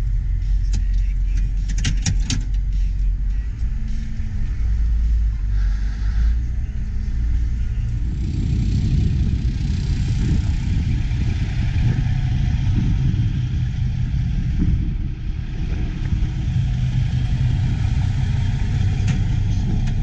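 Steady diesel engine drone inside a John Deere 8870 tractor cab, with a few clicks about two seconds in. About eight seconds in it gives way to the rougher rumble of a Kenworth semi truck's diesel engine running.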